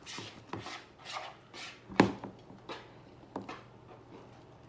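Short rustling and handling noises, with one sharp knock about two seconds in.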